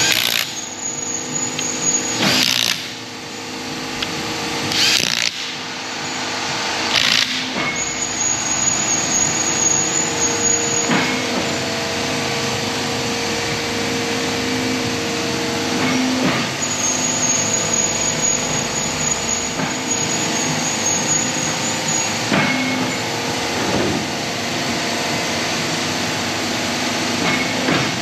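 Workshop machinery running with a steady hum, broken by four short hissing bursts in the first seven seconds or so and a few fainter knocks later on.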